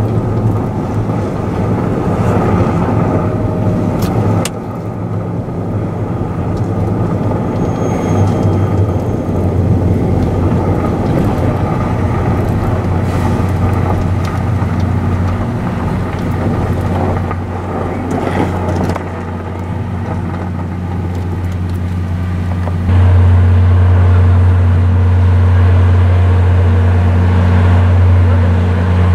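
Car running along a snowy road, heard from inside the cabin: steady engine and tyre noise. About three-quarters of the way through it gives way to a louder, steady low hum from the standing passenger train.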